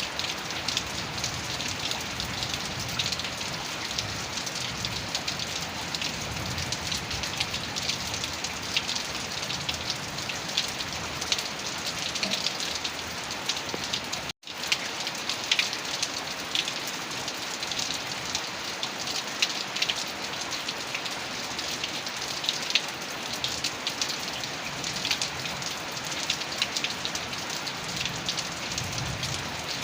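Heavy rain falling steadily, a dense patter of drops. The sound cuts out completely for a split second about halfway through, then resumes unchanged.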